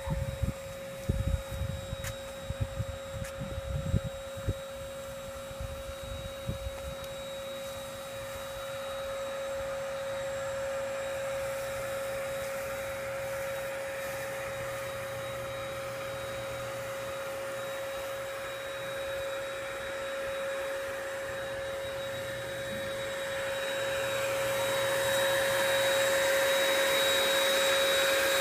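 A steady motor whine with a constant pitch that grows louder near the end. Low rumbling thumps hit the microphone during the first several seconds.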